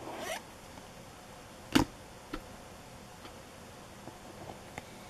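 Paper trading cards handled in a stack: a short swish of one card sliding off another at the start, a single sharp snap or tap near the two-second mark that is the loudest sound, then a few light ticks.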